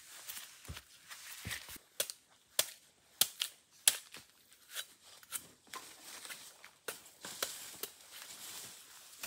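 A run of sharp, irregular snaps and cracks of dry twigs and plant stems breaking, about nine in all, over faint rustling, with the loudest snap about four seconds in.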